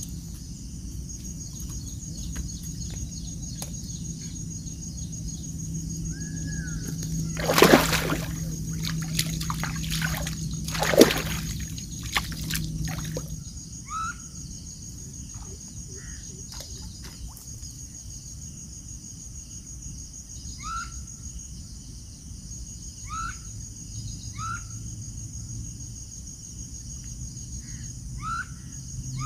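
Water splashing hard twice, a few seconds apart, with smaller splashes around them, as a hooked rohu carp thrashes at the surface while being brought in. A steady cricket trill runs underneath.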